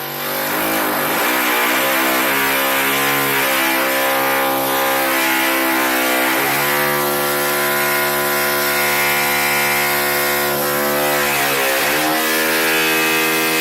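Power saw running steadily for several seconds, its pitch dipping and recovering twice as it bears into the cut.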